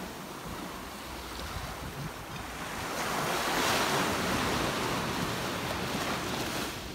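Small surf breaking and washing up a sandy beach, a steady rushing hiss that swells about halfway through as a wave breaks and runs up the sand, then eases off.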